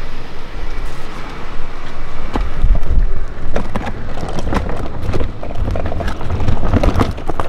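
Wheels of a hard-shell suitcase rolling over rough concrete pavement, rattling with many irregular clicks, over a low rumble of wind on the microphone.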